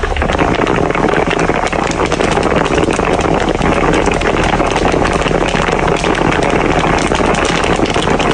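Mung beans popping in a hot wok, a dense, continuous crackle of many small pops.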